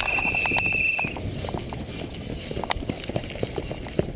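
Hurried footsteps with gear rattling: a quick, irregular patter of knocks and clicks. A steady high beep cuts off about a second in.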